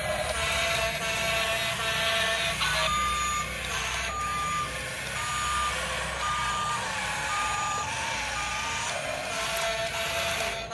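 Electronic sound effects of a toy remote-control excavator: a steady electronic tone, then a reversing-alarm beep repeating a little faster than once a second, with the steady tone back near the end. A constant hiss runs underneath.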